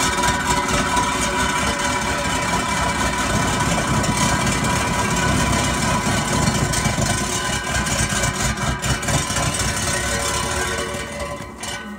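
Skid-steer loader running with its Coneteks 2.13M hydraulic ground-milling attachment, a steady engine rumble with a constant whine. The sound falls away about a second before the end.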